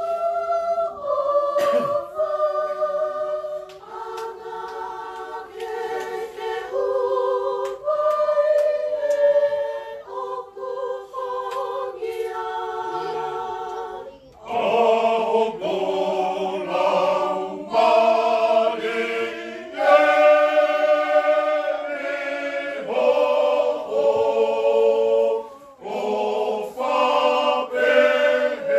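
Tongan church choir singing a hymn unaccompanied, in parts. In the first half the upper voices carry it; from about halfway lower voices join and the singing grows fuller and louder.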